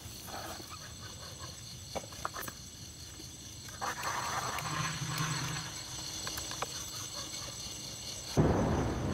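Steady high-pitched chirring of night insects, with a few light clicks as a fishing line and a plastic basket are handled. A louder rush of noise sets in suddenly near the end.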